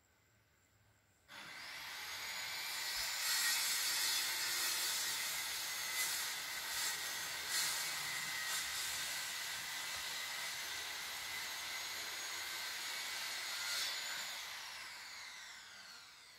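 A motor-driven machine, off screen, starts about a second in with a rising whine and runs with a loud hissing noise, then winds down and fades near the end.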